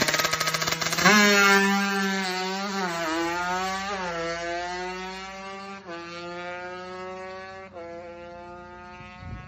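Drag-racing motorcycle with a tuned LMN exhaust, stuttering against the rev limiter, then launching about a second in. The engine note climbs through the gears, dropping in pitch at each of about four shifts, and fades as the bike runs away down the strip.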